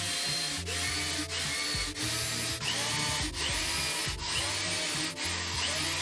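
Cordless drill running steadily into a wooden workpiece, a continuous high whirr, over background music.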